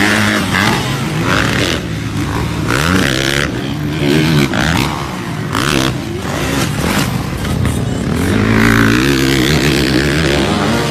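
Motocross dirt bike engines revving, the pitch rising and falling again and again as the bikes throttle up and back off.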